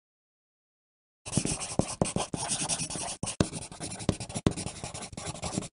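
Pencil writing on paper: a run of scratchy strokes with a few sharper taps and clicks of the tip. It starts abruptly about a second in, after dead silence.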